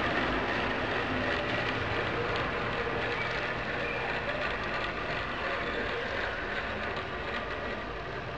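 1/10-scale RC 6x6 crawler truck driving on tile: its Novak Goat 18.5-turn brushless crawler motor and geared drivetrain run steadily with a faint whine over tyre noise, fading slowly as the truck pulls away.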